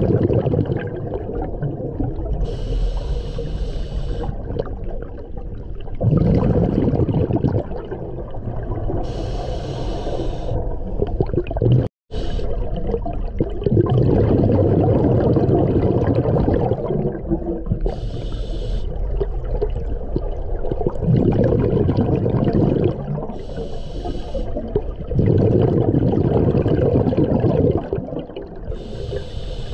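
Scuba diver breathing through a regulator underwater, in a slow cycle of about five breaths. Each breath is a short hissing inhalation through the regulator followed by a longer, louder rumble of exhaled bubbles.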